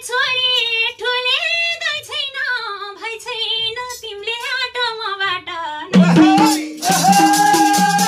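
Live Nepali dohori folk singing: a woman sings a verse alone for about six seconds. Then the madal hand drum and a small tambourine come in together with the group singing a long held note and clapping.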